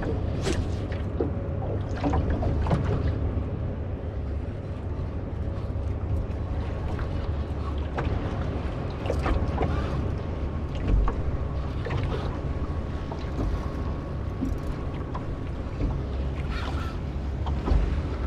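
Small open fishing boat at sea: a steady low rumble with water and wind noise, and scattered knocks and clunks from the boat.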